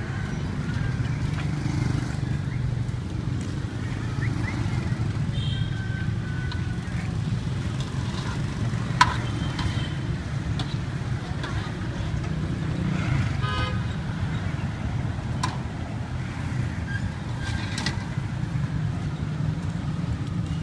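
Steady low rumble of street traffic, with a few short horn toots. A single sharp click about nine seconds in.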